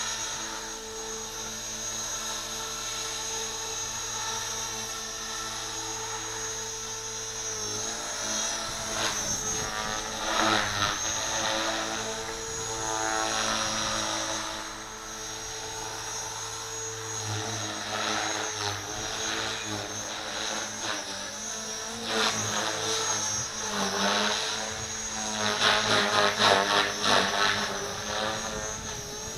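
Gartt 450L electric RC helicopter in 3D flight: a steady motor whine under the buzzing chop of its rotor blades. The rotor noise swells in loud, fluttering bursts during hard manoeuvres, several in the second half and the strongest near the end.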